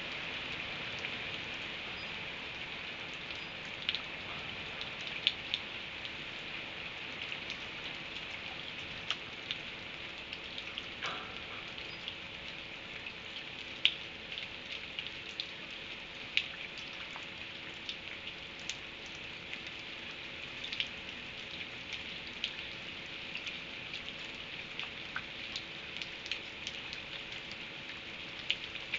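Steady rain falling, a continuous hiss with scattered sharp drip ticks landing at irregular moments.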